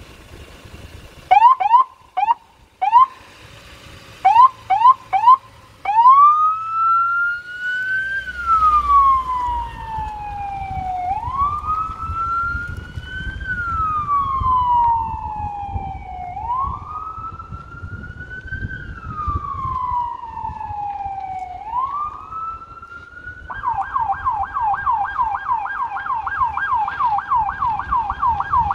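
Federal Signal SS2000 SmartSiren electronic siren: a few short rising chirps in two quick groups, then the wail tone rising and falling slowly about every five seconds. Near the end it switches to the fast yelp, about five cycles a second.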